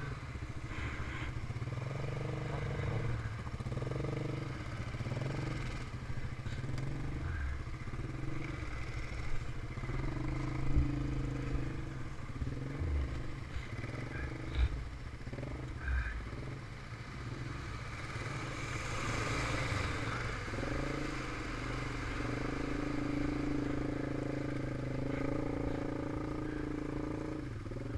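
ATV engine running under load as the quad wades through deep water, its note rising and falling with the throttle. A stretch of water splashing about two-thirds of the way through.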